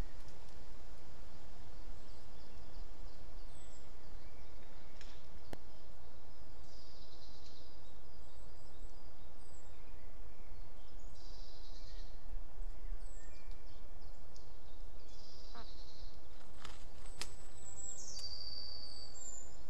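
Spring forest ambience with a steady low rumble and small birds singing and calling in short high phrases. A few sharp clicks are heard, and near the end a clearer high thin whistle drops in pitch and then holds.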